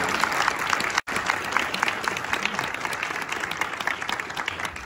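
Congregation applauding, many hands clapping at once, with a brief break about a second in and thinning out near the end.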